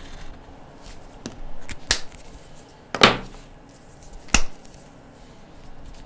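Plastic felt-tip markers being handled: a few sharp clicks and taps, the loudest about two, three and four and a half seconds in, as the orange jumbo marker is put away and a pink one picked up.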